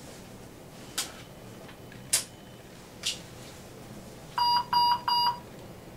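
Three sharp clicks about a second apart, then a Puritan Bennett 560 ventilator sounds its alarm as three short beeps in quick succession. The alarm signals that DC power from the wheelchair has been lost and the ventilator has switched to its internal battery.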